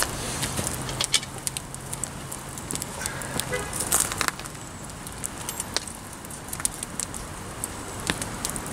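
Wood campfire crackling with scattered sharp pops. Around four seconds in, a cluster of metal clanks as a cast-iron Dutch oven is hooked onto the tripod's chain. A low steady hum runs through the first three seconds.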